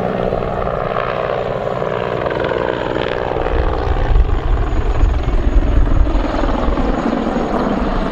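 Mil Mi-24 Hind attack helicopter flying a low display pass: steady turbine and rotor sound, with the low rotor beat growing heavier and louder about halfway through as it banks hard.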